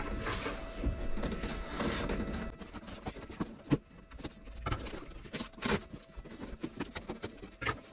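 Scissors cutting into a cardboard shipping box, with scraping and rustling of the cardboard and a few sharper clicks about two seconds apart.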